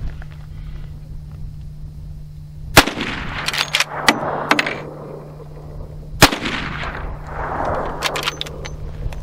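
Two shots from a Marlin Model 1894 lever-action rifle in .357 Magnum, about three and a half seconds apart, each trailed by a rolling echo. Sharper clicks follow each shot as the lever is worked to chamber the next round.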